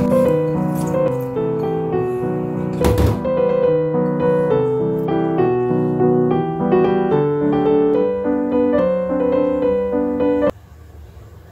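Background music: an instrumental tune of short, evenly paced notes over chords, with one brief knock about three seconds in. The music cuts off suddenly about a second before the end.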